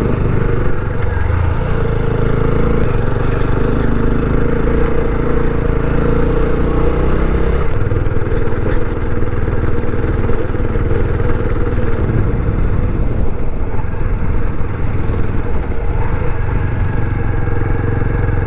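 TVS Apache RTR 160 BS6 motorcycle's single-cylinder engine running steadily at low speed over a rough dirt track, with tyre and road noise.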